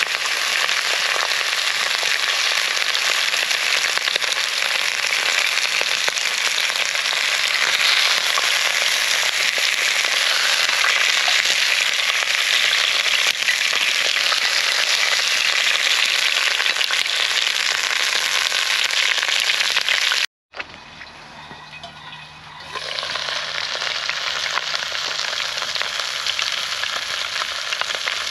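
Short ribs sizzling loudly in a hot cast iron pan over a campfire, a steady dense frying hiss. About twenty seconds in it cuts out suddenly, comes back quieter for a couple of seconds, then returns to full strength.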